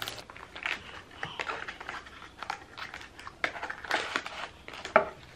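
Small cardboard product box being opened and handled: a string of short, irregular scrapes and crinkles of card and paper.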